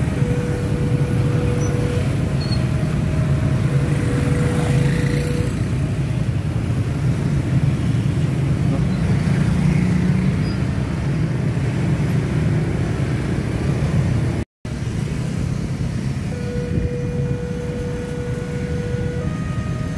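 Dense motorcycle and scooter traffic: many small motorbike engines running steadily as the bikes pass close by. A steady tone sounds on and off several times over it, and the sound cuts out completely for a moment about two-thirds of the way through.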